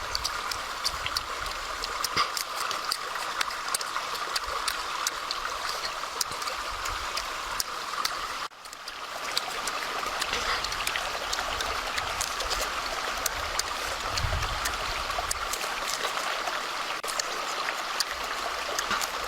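Running water of a stream flowing steadily, with small splashy ticks through it. The sound cuts out for a moment about eight and a half seconds in and then carries on.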